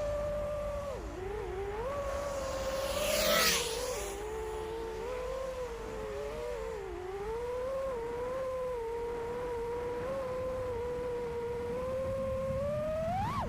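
5-inch FPV quadcopter's T-Motor Velox V2207 2550KV motors on 4S, spinning Nazgul F5 props, whining with a pitch that rises and falls as the throttle changes. About three seconds in comes a brief, loud rushing swish. Near the end the pitch shoots up sharply on a throttle punch.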